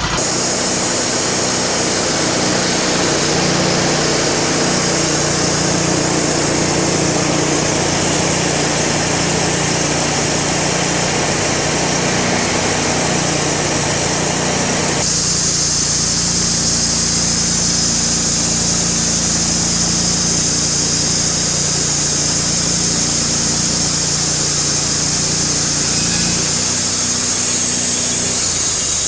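Portable sawmill running under load, its engine held steady as the blade cuts lengthwise through an ash log. The sound shifts about halfway through, with a brighter hiss on top.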